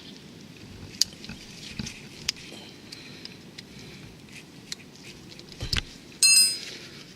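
Small metal clicks and taps of tools and parts being handled, with one brief ringing metallic clink about six seconds in.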